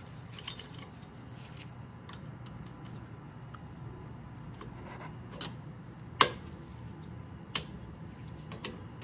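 Scattered small metallic clicks and taps of steel pliers and a coil tension spring against a parking brake shoe assembly as the spring is hooked into its hole. The sharpest click comes about six seconds in, with another about a second and a half later, over a low steady hum.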